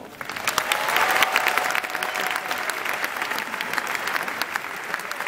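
Large cinema audience applauding, starting at once and building to its loudest about a second in, then clapping on steadily.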